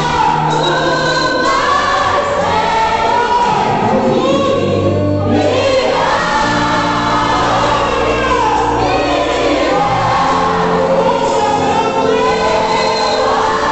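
Live Christian worship music: saxophone with a band and many voices singing together.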